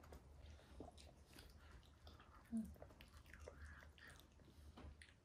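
Near silence with faint chewing and small mouth sounds of people eating soft martabak manis pancake, and a short low tone about halfway through.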